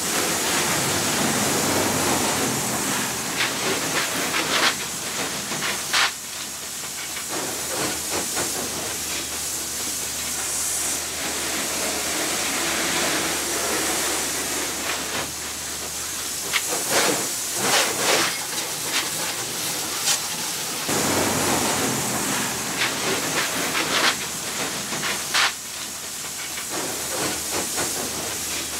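Steady hissing water spray from a hose wand jetting into an aluminum boat hull, washing out debris, with a few sharp knocks and splatters here and there.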